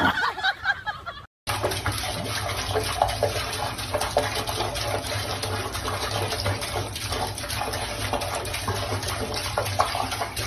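Water running steadily from a faucet into a sink, the stream broken by a cat's paw. It starts just over a second in and runs on to the end.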